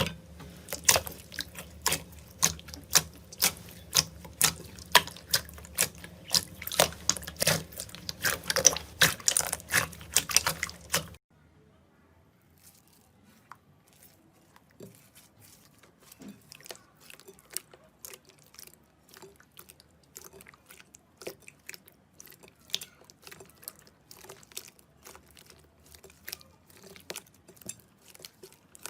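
Slime being squeezed and pressed by hand, giving sharp wet clicks and pops about two to three a second. About eleven seconds in it cuts to a much quieter stretch of soft, irregular crackling and popping.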